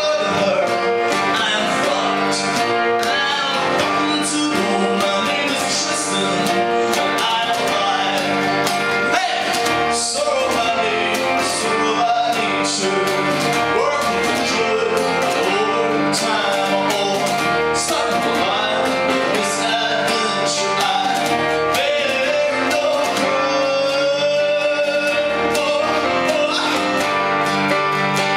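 Live acoustic music: a man singing while strumming a ukulele.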